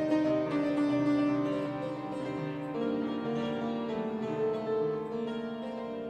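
Instrumental outro music on a keyboard, with slow, held notes that change every second or so.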